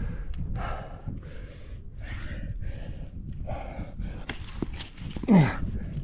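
A rock climber breathing hard and fast while straining on a difficult move, with quick puffs about two a second. About five seconds in comes a loud grunt that falls in pitch.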